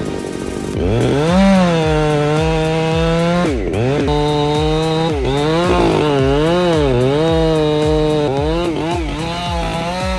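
Chainsaw running under load as it cuts into a tree, starting about a second in; its engine pitch repeatedly sags as the chain bites and recovers, with a couple of brief deep dips.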